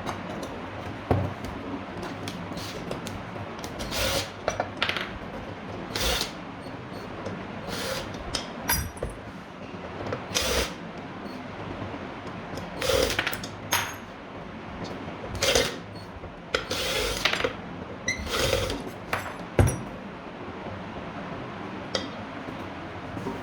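Irregular work noises from tools on a ceiling fan's metal parts during a bearing replacement: a dozen or so short scraping strokes and sharp knocks at uneven intervals.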